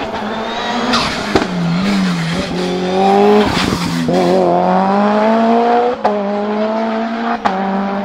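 Tuned Mitsubishi Lancer Evo's turbocharged 4G63 four-cylinder race engine at full throttle, the revs climbing through the gears with a sharp crack and a brief break in the note at each upshift, about six and seven and a half seconds in.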